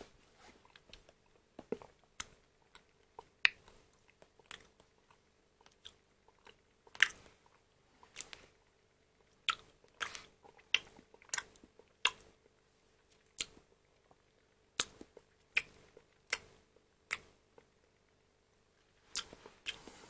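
Mouth noises of someone eating a soft, creamy dessert: irregular wet smacks and tongue clicks, about one or two a second, with a short pause near the end.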